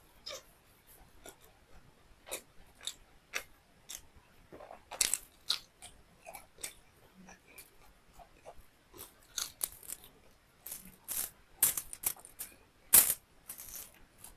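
Close-up eating sounds of a person chewing beef liver with rice: irregular wet mouth clicks and smacks, with a few louder ones near the end.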